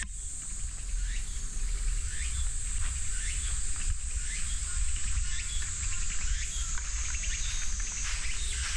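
Summer insects droning in a steady high hiss, with short falling chirps repeating about twice a second, over a low rumble.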